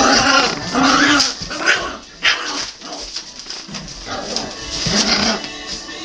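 Two poodle puppies growling and yapping in short bursts as they play-fight, the loudest bursts in the first second or so.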